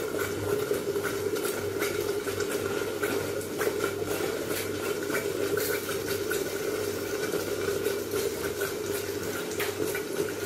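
Tomato sauce simmering in a pan under a glass lid, its bubbles popping in many small irregular ticks over a steady low hum.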